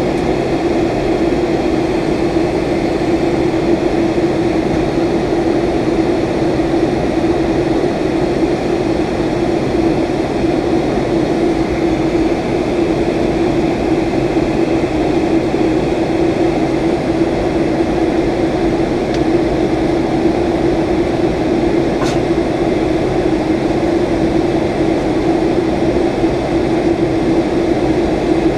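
Steady in-flight cabin noise of a Boeing 757-200 in descent: the even rush of airflow and engine drone, with a steady hum running through it. One faint tick about three-quarters of the way through.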